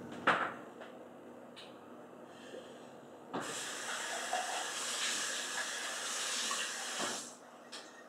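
Water running hard from a tap for about four seconds, switched on and off abruptly, with a sharp knock near the start.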